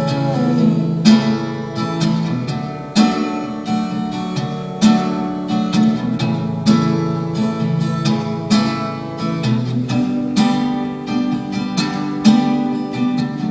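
Instrumental passage of a song: acoustic guitar strumming chords in a steady rhythm, with a strong accented strum about every two seconds.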